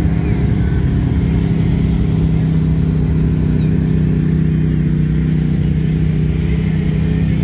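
Side-by-side UTV engines running in a steady low drone at a constant pitch.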